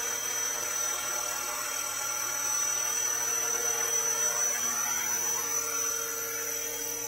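Electric 470-size scale RC helicopter, a JCZK Schweizer 300C, running its brushless motor and rotors with a steady high-pitched whine. It keeps running as the model comes down low and settles onto the ground.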